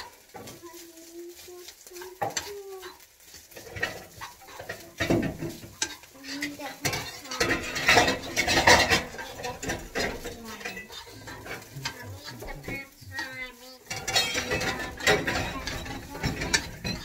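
A spatula stirring and scraping fried rice in a frying pan, with frequent clinks against the pan over a light sizzle.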